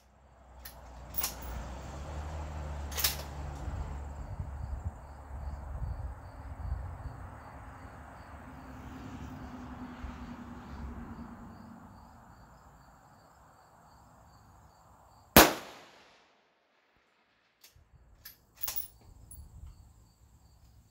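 A single sharp rifle shot from an MPA rifle in .223 Remington, about two-thirds of the way in, the loudest sound by far, with a short echo tail. Before it there is a low rumbling noise with a few faint clicks.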